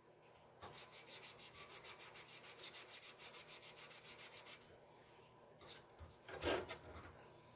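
Faint rhythmic rubbing, quick even strokes of about five a second, for about four seconds, then a brief soft handling sound near the end.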